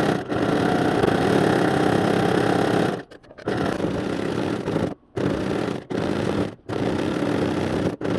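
Janome domestic sewing machine stitching fast in free-motion embroidery. It runs in long steady spells with a short stop about three seconds in and several brief stops in the second half.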